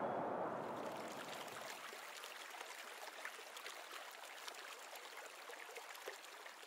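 Faint shallow river water running and riffling over stones.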